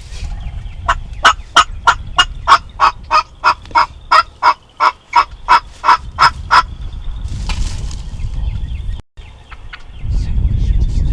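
A long, even run of turkey yelps, about three a second for some six seconds, then a short rustle and a low rumble.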